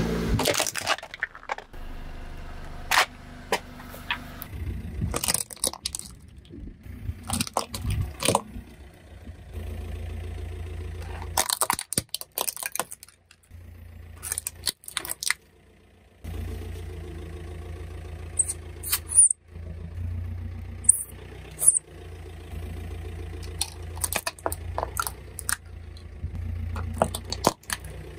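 A car tyre rolling slowly over plastic objects, a toy bubble machine, a cordless phone handset and small plastic toys, crushing them with sharp cracks and snaps over the car's low engine rumble. It comes in several short takes with brief gaps, and there are a few short high squeaks near the middle.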